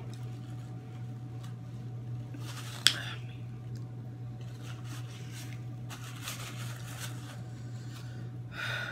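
Close-up eating sounds from a seafood boil meal: chewing and handling food, with one sharp click about three seconds in, over a steady low hum.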